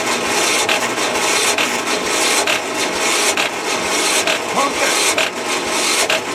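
Electric starter cranking a Murray riding mower's 13 hp Tecumseh engine without it catching: a steady rasping grind with a faint pulse about once a second, cutting off suddenly near the end.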